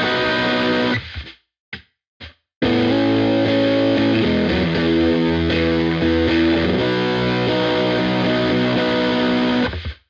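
Epiphone Les Paul Black Beauty with three humbuckers, played through distortion. A held chord is muted about a second in, followed by two brief choked stabs. Then sustained chords change pitch several times and are cut off near the end.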